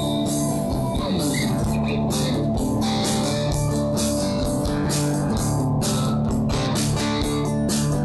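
Live rock band playing: guitars, bass guitar and drum kit, with cymbals hit steadily throughout.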